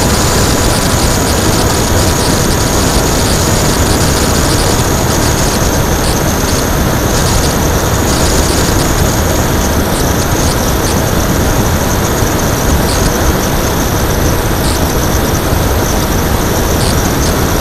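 Onboard sound of an RC plane in flight: a Turnigy D3536 brushless electric motor spinning an 8x6 propeller, a loud steady drone with a thin high whine, mixed with wind rushing over the action camera.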